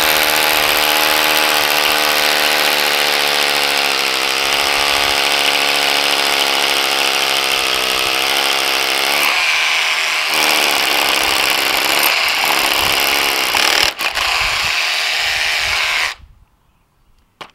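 Cordless rotary hammer drill boring a 14 mm hole through a concrete driveway slab, running steadily under pressure. The sound turns rougher about nine seconds in, a sharp knock comes near the end, and the drill then stops.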